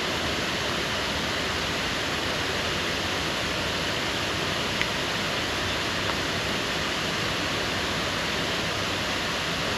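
Steady, even rushing noise with no pattern, with a faint click about five seconds in.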